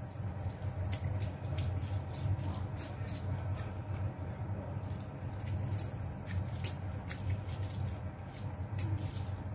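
Lemon squeezed by hand over chicken pieces in a cooking pot: faint, irregular wet squeaks and drips, many short ticks, over a steady low hum.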